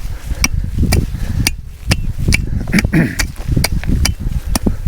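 A hand digging tool chopping into soil, digging out a trap bed, with sharp strikes about two a second.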